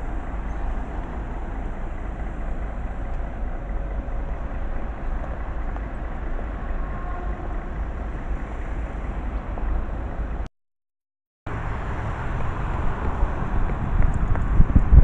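Steady city road traffic: a rumble of cars and a city bus on a busy street. The sound cuts out completely for about a second about ten seconds in, then a similar outdoor rumble resumes.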